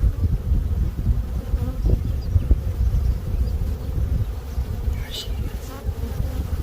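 Honeybees buzzing in an open hive split, a dense steady hum of many bees. It is the contented sound that the beekeeper calls a happy noise, from a colony that had been queenless and has just been given a new queen.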